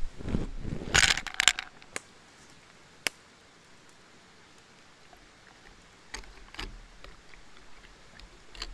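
A short clatter of light clinks about a second in, then two single sharp clicks, followed by faint handling noise.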